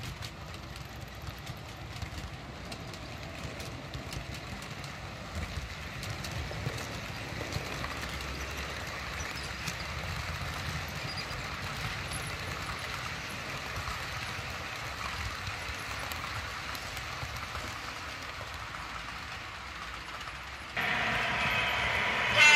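Model freight train running on a model railway track with its sound decoder off: a steady low rumble and rattle of wagon wheels, with rapid light clicks over the rail joints. About twenty seconds in, a louder, higher rushing noise starts abruptly.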